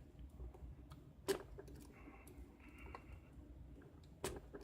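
Lock pick being zipped across the pin stack of a cheap padlock: faint metallic scraping and ticking, with two sharp clicks, one about a second in and one near the end.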